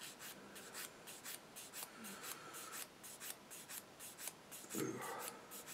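Sanding stick rubbing in quick, light back-and-forth strokes, about three or four a second, on a small plastic model part, cleaning up the sprue gate marks. A brief low murmur a little under five seconds in.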